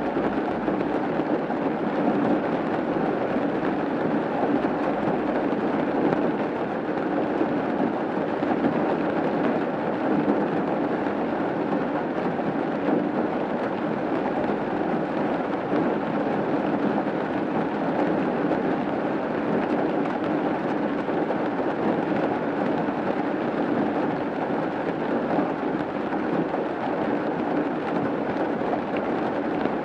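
Steady rain falling on a roof, an even, unbroken wash of sound with no pauses or single loud strikes.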